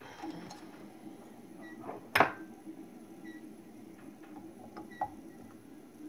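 Metal scraper scraping and prying under a stuck PLA print on a 3D printer's heated bed, metal tools clinking, with one sharp loud clack about two seconds in and a smaller click near five seconds.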